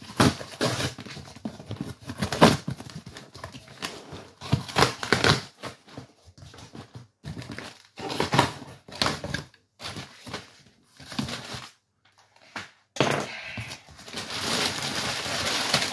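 A cardboard delivery box being opened and unpacked by hand: irregular bursts of scraping, crushing and crinkling of cardboard and plastic packaging, with a brief pause near the end followed by a denser stretch of crinkling.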